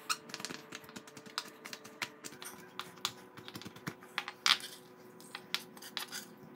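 Kitchen knife chopping dried shrimp on a wooden cutting board: quick, irregular taps of the blade against the board, with a louder tap about four and a half seconds in.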